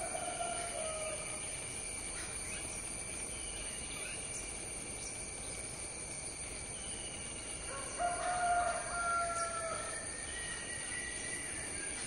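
A rooster crowing twice, once at the start and again about eight seconds in, each crow drawn out and falling slightly at the end. Under it runs a steady high insect drone, with a few faint bird chirps.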